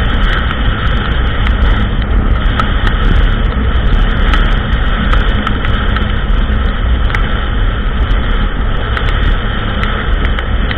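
ATV engine running steadily while riding a trail, with scattered light clicks and rattles over the top.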